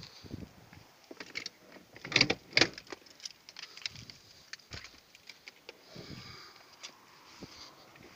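A bunch of keys jangling amid scattered small clicks and handling knocks, with two louder knocks about two seconds in.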